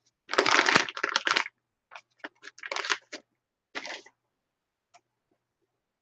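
Paper crinkling and rustling as it is handled, in several short bursts over the first four seconds, the first and loudest lasting about a second.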